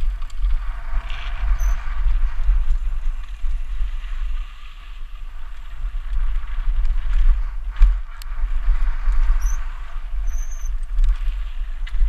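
Mountain bike running fast down a loose gravel trail, tyres crunching and the bike rattling, with heavy wind rumble on the helmet-mounted action camera. A single sharp knock comes near eight seconds in, likely a wheel striking a rock or a bump.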